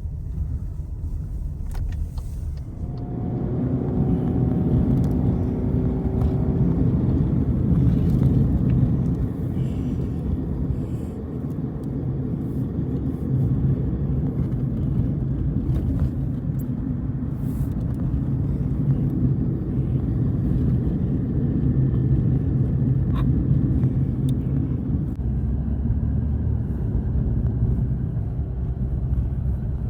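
Car running with a steady low engine and road rumble that grows louder about three seconds in.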